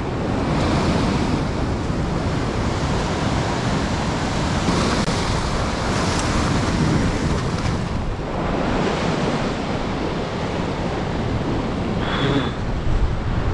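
Sea surf washing and surging, the waves swelling a few times, with wind blowing across the microphone.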